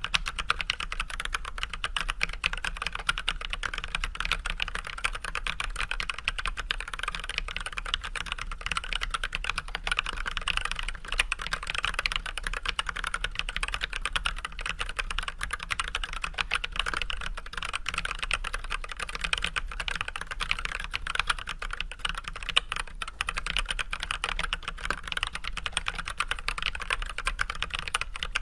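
Continuous normal-speed typing on an Archon AK87 hot-swap mechanical keyboard fitted with unlubed Everglide Red 67g linear switches with switch films and white PBT keycaps: a dense, even stream of keystroke clacks.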